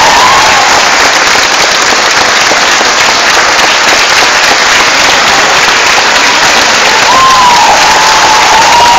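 Theatre audience applauding steadily, with a few shouts and cheers rising over the clapping near the end.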